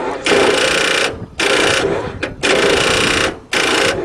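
The starter solenoids of a Ford diesel truck chattering in rapid clicking instead of cranking the engine, in repeated bursts each just under a second long with short breaks between. The owner puts the chatter down to a bad body ground.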